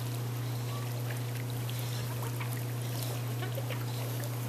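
Steady low hum of an above-ground pool's filter pump, with water trickling and lapping in the pool as a dog swims.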